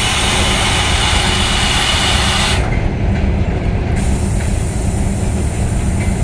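EP1M electric locomotive standing close by with a steady low hum, overlaid by a loud hiss of air that cuts off abruptly about two and a half seconds in and starts again about a second and a half later.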